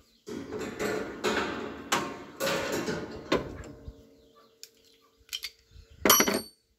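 Hands and metal tools being handled in an excavator's engine bay: rubbing and rustling with scattered clicks and knocks for the first few seconds, then a short bright metallic clink with a ringing edge about six seconds in.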